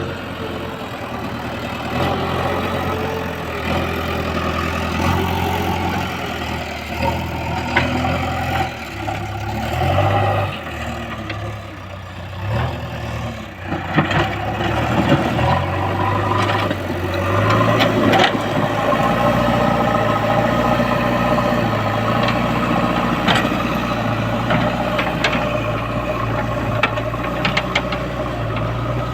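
JCB 3DX backhoe loader's diesel engine running under changing load as it works the ground, its speed and note rising and falling. Occasional metallic clanks and rattles come from the machine.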